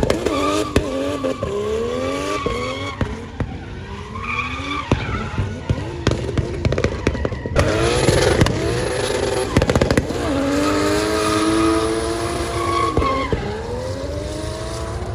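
Drift car's engine revving hard, its pitch climbing and falling back again and again as the car slides, with tyres squealing and scattered sharp cracks.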